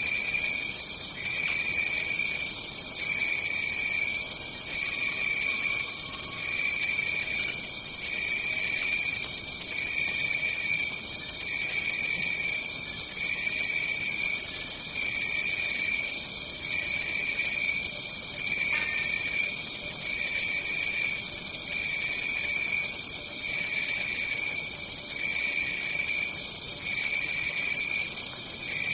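Tropical rainforest insect chorus: a continuous high chirring on two pitches, the lower one pulsing roughly once a second.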